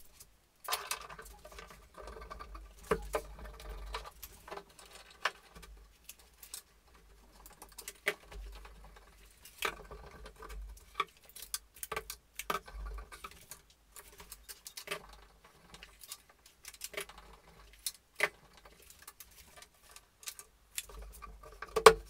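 Irregular light clicks, taps and a few louder knocks as a wooden cabinet side panel is handled, positioned and clamped with a bar clamp.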